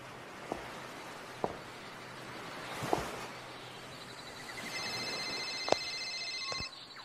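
Static-like hiss with a few sharp clicks, then a steady high electronic tone for about two seconds that cuts off suddenly.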